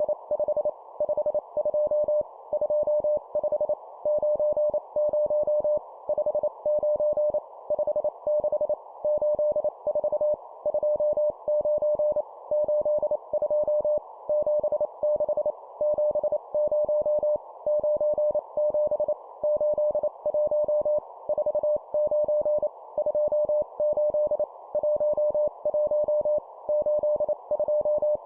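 Morse code practice at 25 words per minute: a single steady mid-pitched tone keyed on and off in fast dots and dashes, sending number words, with short pauses between groups.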